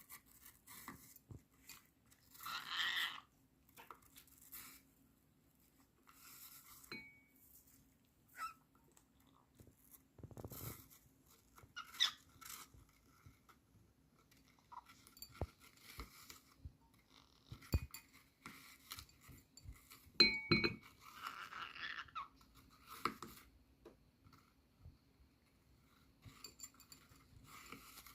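Small pet parrot nibbling and chewing, giving scattered soft crunches, clicks and taps, with a couple of brief high chirps.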